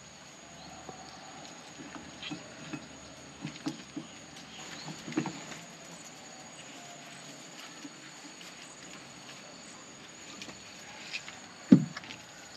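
Scattered light knocks and clicks of a whole chicken being handled and clamped between split bamboo sticks for bakakak, with one louder knock near the end.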